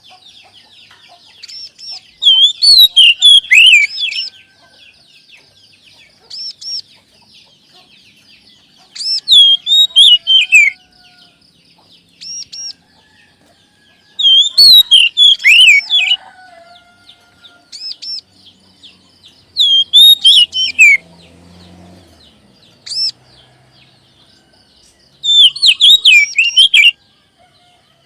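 Oriental magpie-robin (kacer) song: loud bursts of fast, swooping whistled phrases, each lasting one to two seconds and coming about every five to six seconds, over a steady faint high chirping.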